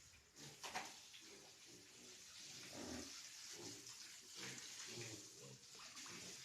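Pigs grunting softly, a string of short low grunts, over a steady hiss, with one sharp click a little under a second in.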